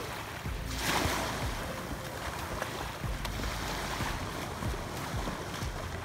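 Shallow seawater splashing and sloshing around a swimmer, with wind rumbling on the microphone; the water is loudest about a second in.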